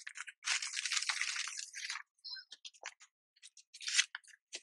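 Clear plastic sleeve crinkling and paper sticker sheets rustling as they are slid out and handled. A dense stretch of crinkling comes about half a second in and lasts a second and a half, then gives way to scattered crackles, with another short rustle near the end.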